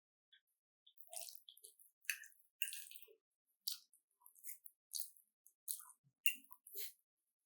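Close-miked chewing of food: a run of short, wet mouth clicks and smacks, about one or two a second.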